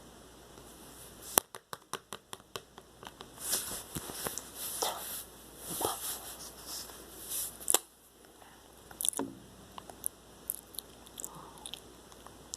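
Slime being squished and worked by hand: a quick run of sharp popping clicks, then wet, crackly squishing, a louder pop, and scattered small clicks.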